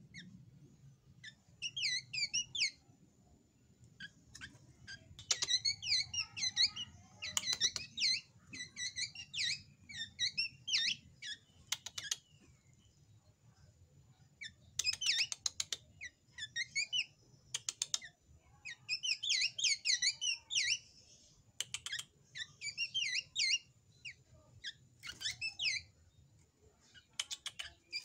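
Young caged drongo singing: bursts of quick, bright chirping and whistled phrases separated by short pauses, with sharp clicks between some phrases.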